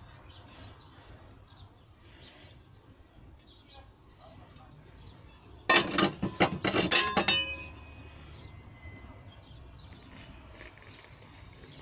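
Thin steel sheet clattering as it is handled and bent on the bench: a quick cluster of clanks and rattles about halfway through, lasting under two seconds, then a short metallic ring.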